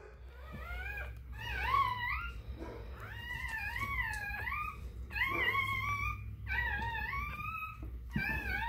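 Newborn XL American Bully puppy crying: a string of about seven or eight high-pitched, wavering squeals, each lasting under a second, while it is handled.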